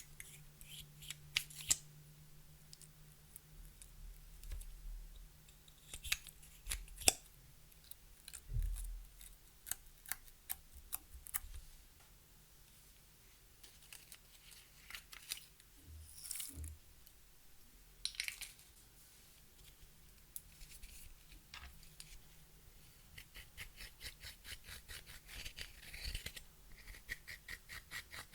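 Clear slime being worked by hand with makeup mixed in: scattered crisp clicks, pops and crackles, with a quick run of clicks near the end.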